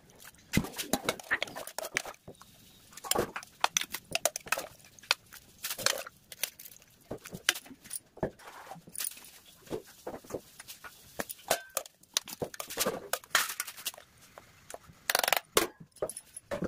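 Steel utensils clinking and knocking: a steel ladle striking and scraping steel bowls, plates and pots as food is served, in an irregular run of sharp clinks.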